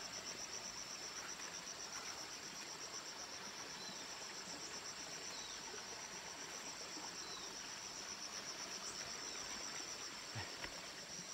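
An insect trilling steadily: a high-pitched, rapidly pulsing chirr over a quiet rural background.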